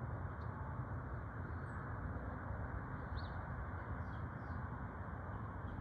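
A steady low outdoor rumble, with a few short, faint high bird chirps scattered over it.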